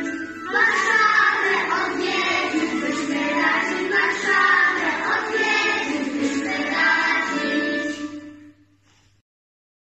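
A group of young children singing together as a choir. The singing ends about eight seconds in and the sound fades out to silence.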